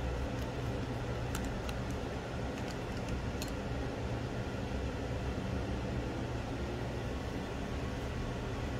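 Steady low hum and hiss of background noise, with a few light clicks in the first three and a half seconds as a small bottle and tools are handled on the towel.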